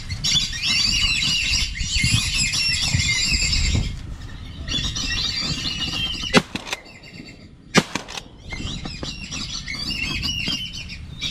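A flock of whistling ducks (wisi wisi) keeps up a constant chatter of high whistled calls. About two-thirds of the way in, two gunshots ring out about a second and a half apart. The calling drops away briefly after the shots, then builds again.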